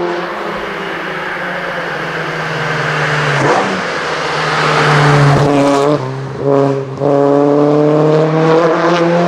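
BMW 2002 tii Alpina hillclimb race car's engine at high revs, its pitch sliding down and then climbing again, with a few short breaks about six and seven seconds in.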